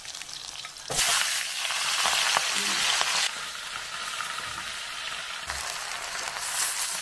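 Spinach stir-frying in hot oil in a wok with dried chilies, sizzling and stirred with a metal spatula. The sizzle jumps louder about a second in, then eases a little about three seconds in.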